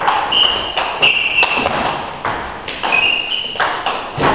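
Table tennis rally: the ball clicking off the bats and the table several times, with short high-pitched squeaks or rings between the hits.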